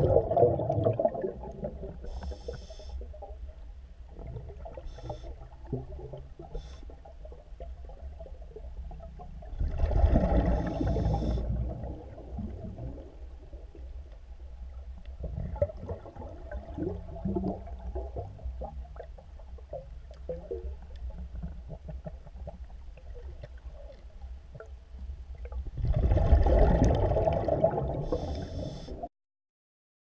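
Underwater scuba breathing: three loud rushes of exhaled bubbles from a diver's regulator, one at the start, one about ten seconds in and one near the end, with short hisses of inhaling through the regulator and a low underwater rumble between them.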